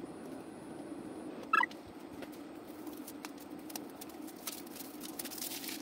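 Steady low hum from a running Bambu Lab H2 3D printer. About a second and a half in, a short loud chirp falls in pitch. Later come scattered light clicks and crinkles as the cut sticker sheet is handled.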